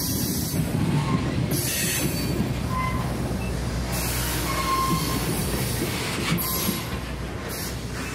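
Train rolling by, its steel wheels rumbling on the rails, with short faint flange squeals a few times.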